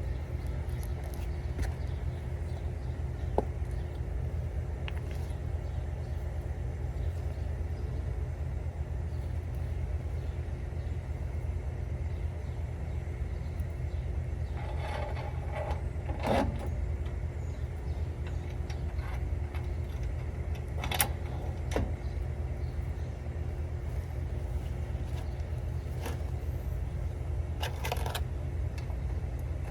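A steady low hum, with a few scattered metallic clinks and knocks of hand tools and front-suspension parts being handled.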